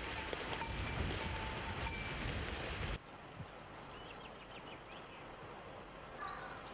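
Sheep bells clinking irregularly over a low rumble from a grazing flock. About three seconds in the sound cuts to a quieter scene with a steady high insect buzz, likely crickets or cicadas, and a few faint chirps.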